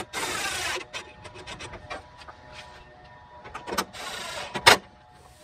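Plastic push-in fasteners being pressed into a Jeep Grand Cherokee ZJ header panel: scattered clicks and two short stretches of plastic scraping, with a loud sharp snap near the end.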